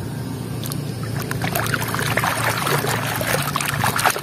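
A plastic toy crab being swished and scrubbed by hand in shallow muddy water, washing off the mud. The splashing starts about a second in and grows into continuous sloshing.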